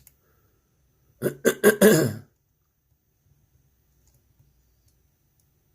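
A man coughing and clearing his throat: a quick run of short, harsh bursts about a second in. A few faint small clicks follow.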